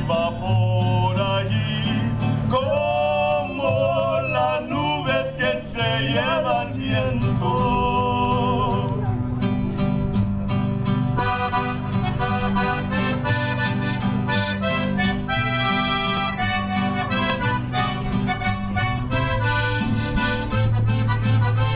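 Piano accordion and acoustic guitar playing a corrido, amplified through a stage PA, with the accordion's melody over the guitar's steady strummed bass-and-chord rhythm.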